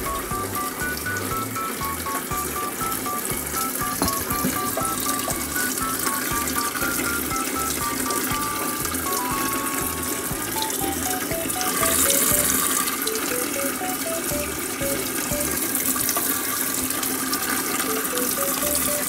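Light background music, a simple melody of short notes, over a steady rush of water.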